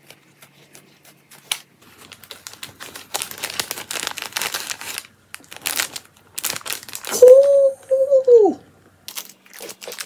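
Plastic wrapper crinkling and rustling as a small packaged item is handled, with scattered clicks. About seven seconds in, a loud drawn-out tone rises, holds for about a second and falls away.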